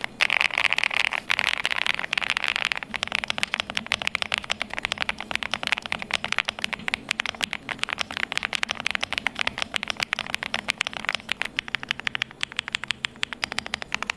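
Elecfox Spectra 75 gasket-mounted mechanical keyboard being typed on fast: a rapid, continuous stream of key clicks.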